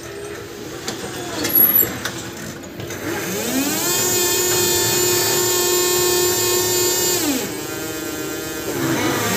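Electric reach truck's motor whining. It winds up about three seconds in, holds a steady pitch for a few seconds, winds down, and winds up again near the end. A few clicks and knocks come before it.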